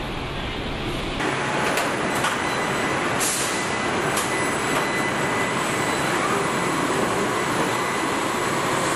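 Steady din of an automotive body-shop line, with welding robots and body fixtures running. The noise turns brighter about a second in, and a few short hisses break through around two to four seconds in.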